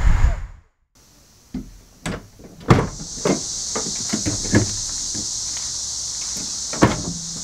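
A few sharp knocks and clicks around the van's open rear doors, the loudest about two and a half seconds in, over a steady high hiss that sets in about three seconds in. At the very start a brief low wind rumble cuts off.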